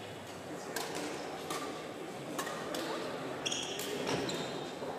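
Badminton rally: several sharp racket strikes on the shuttlecock, roughly one every half second to second, with short high shoe squeaks on the wooden court floor about three and a half seconds in.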